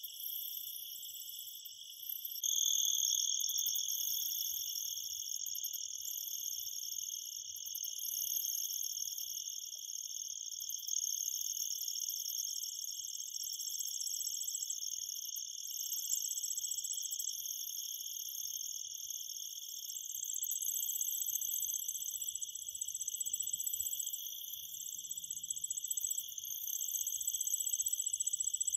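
Insects chirping in a dense, steady chorus of high, rapid trills, which gets louder about two seconds in.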